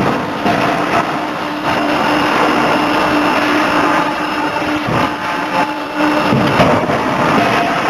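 A 50 kJ gear forging hammer and its hydraulic drive running in a forge: a steady mechanical hum over loud, dense machinery noise, with a few faint knocks.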